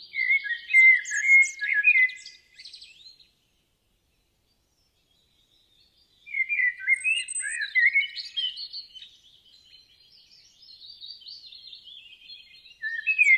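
A songbird singing phrases of rapid, varied chirping notes: one phrase over the first few seconds, a pause of about three seconds, then a longer phrase, and a new one starting near the end.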